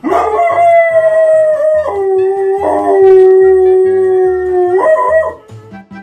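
Pit bull-type dog howling while being bathed: one long howl that rises at the start, holds a higher note, drops to a lower held note about two seconds in, and ends with a short warble near five seconds.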